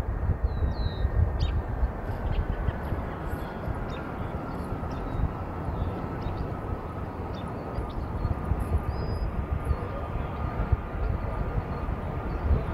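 Distant jet airliner engines with a low rumble and a faint high whine that sags slightly in pitch. Small birds chirp briefly several times.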